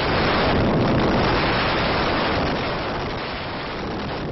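Roar of the Supertech twin towers coming down in a controlled explosive demolition: a dense, steady rumbling noise that slowly fades.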